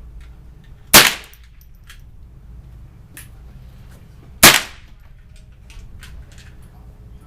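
Two rifle shots about three and a half seconds apart, each with a short echo off the walls of an enclosed indoor range.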